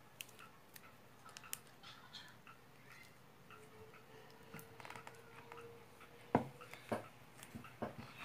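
Faint scattered clicks and small taps of hands handling toppings and dishes at a table, with a few sharper clicks in the last two seconds.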